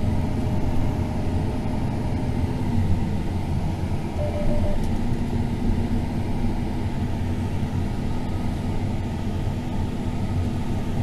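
John Deere S780 combine running at a steady low drone during the rye harvest, with a faint steady tone carried in the hum.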